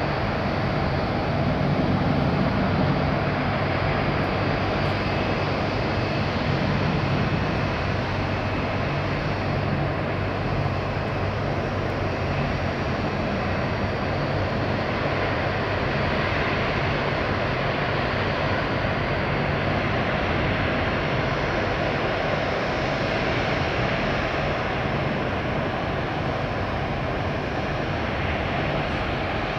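Boeing 787-8 airliner's jet engines running steadily: a continuous rushing noise with a low hum underneath.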